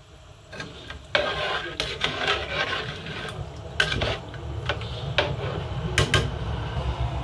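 A spoon stirring soup in a large aluminium pot, scraping against the pot and knocking its metal side in several sharp clinks.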